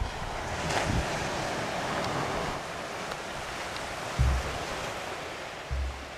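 Gentle surf washing on a sandy, rocky shore of a calm sea, with wind rumbling on the microphone in two short gusts, about four seconds in and near the end.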